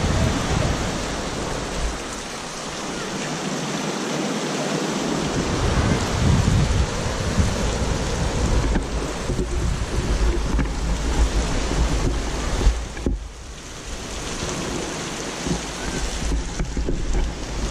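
Wind gusting across the microphone: a steady rushing noise with uneven low buffeting, easing briefly about three-quarters of the way through.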